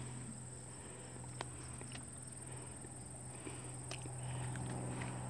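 Insects trilling steadily at one high, even pitch, with a few faint clicks.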